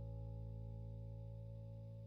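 Background music: a held chord that slowly fades.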